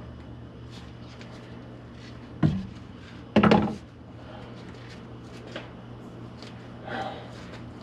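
Thuds and knocks of a person climbing around inside a stripped car's cabin, with a sharp thump about two and a half seconds in and a louder, longer bump about a second later, among light clicks and rustles.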